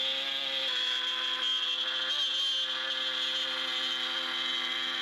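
CNC router spindle milling inner contours into a glued solid-wood board: a steady machine whine with several held tones, wavering briefly about two seconds in as the cut load changes.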